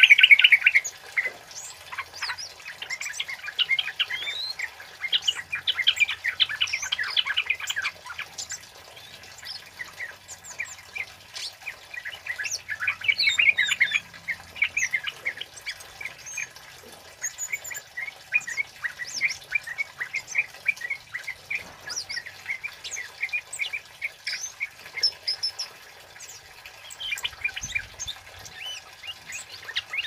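Caged male scarlet-headed flowerpecker (kemade) calling: rapid runs of sharp, high 'cit' chirps in bursts, with short pauses between runs.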